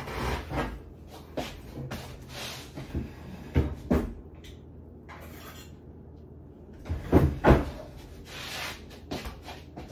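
Kitchen cupboard doors and drawers being opened and shut, heard as a string of separate knocks and clacks, the loudest two close together about seven seconds in.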